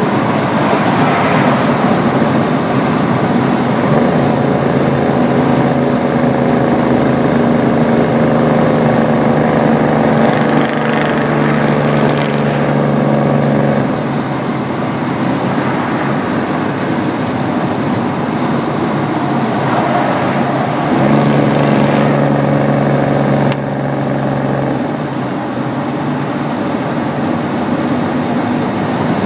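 Ford 7.3 IDI turbodiesel V8 running under way, with its turbo whistling. The engine drone swells into steady tones for about ten seconds, fades, then returns briefly near the end.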